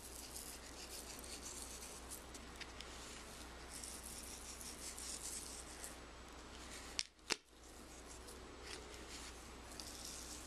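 Faint dry rustling and scratching of fingers pinching and sprinkling glitter onto a glue-coated craft star, with one sharp click about seven seconds in.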